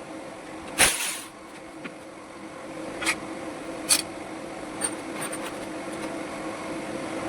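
Hand tools clicking against metal as the clutch of an old cast-iron Royal Enfield Bullet is undone: several sharp clicks, the loudest about a second in, over a steady hum.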